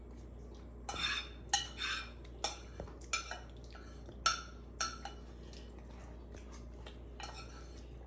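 Cutlery clinking against dinner plates: a scattering of separate sharp clinks with short gaps between them.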